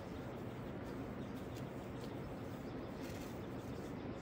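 Steady outdoor background hiss, with faint bird chirps.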